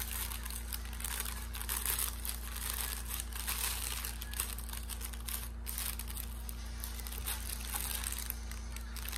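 Thin plastic packaging crinkling and rustling as it is handled and pulled at, a continuous run of small irregular crackles.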